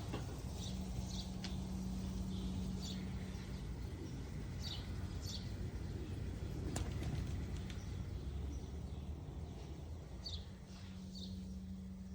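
Short, high bird chirps scattered over a steady low hum, with a low steady tone that comes in near the start and again near the end.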